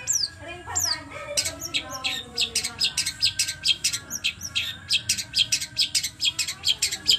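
Caged long-tailed shrike (cendet) singing in the fast 'trotol' style: a couple of falling whistles, then from about a second in a rapid, even run of sharp, high repeated notes, about four to five a second.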